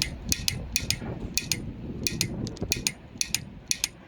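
1/2-inch click-type torque wrench set to 200 Nm, clicking repeatedly in quick pairs, about two pairs a second, as its ratchet head is worked back and forth on a fastener.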